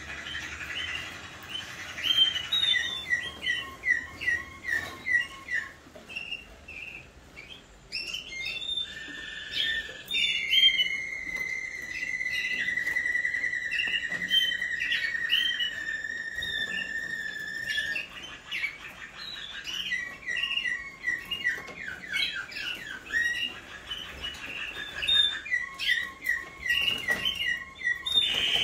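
Waterslager song canaries singing in their cages: runs of quick repeated notes, with one long even trill held for about seven seconds in the middle.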